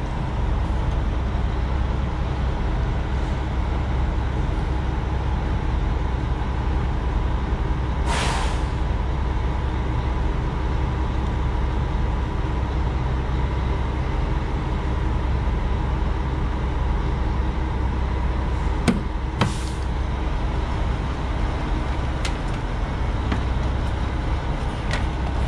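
Truck engine idling with a steady low rumble, a short hiss about eight seconds in and another near nineteen seconds. A few light clicks come from a utility knife scoring the plastic window-screen frame.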